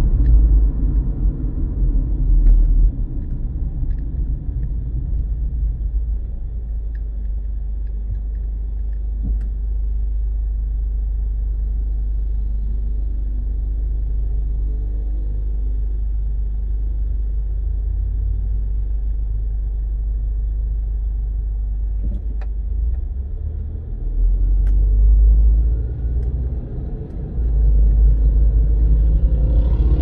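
A car driving, heard from inside the cabin: a steady low road-and-engine rumble that swells louder twice in the last several seconds.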